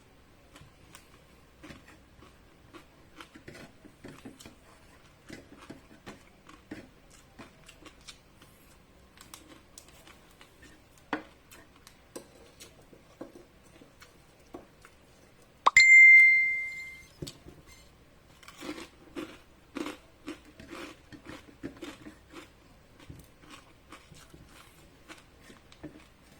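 Eating sounds: crunching and chewing of chicharon (fried pork rinds) with rice, as many small irregular crunches and clicks. About sixteen seconds in, a single bright ding rings out and fades over about a second.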